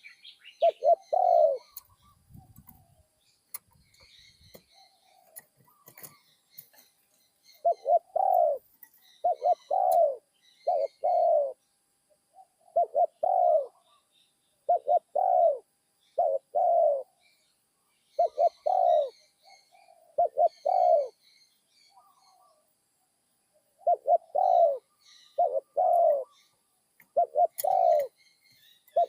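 Spotted dove cooing over and over in short phrases of low, rounded coos, its middle-pitched voice with a single 'kuk' note. It falls silent for a few seconds near the start and again past the middle. Small birds chirp faintly in the background.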